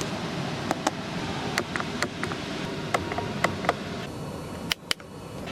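Irregular sharp clicks from the cabin controls of a Bentley Flying Spur over a steady low hum, ending with two louder clicks in quick succession near the end.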